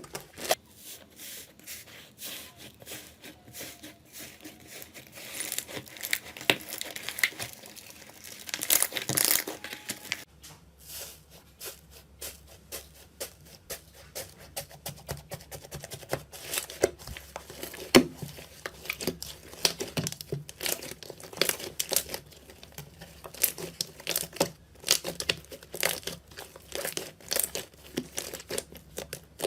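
Slime being worked by hand, giving a fast, irregular run of small crackles and pops as it is pressed and stretched. The background changes about ten seconds in, where a new clip begins.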